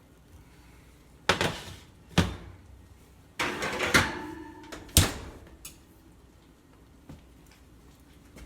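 A metal cake pan being handled: about four knocks and clunks, the one in the middle ringing briefly.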